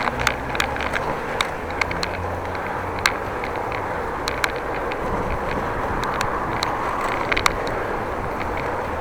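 Steady rush of bicycle riding noise, with tyres on the road and wind on the microphone, broken by many short, sharp clicks and rattles at irregular intervals.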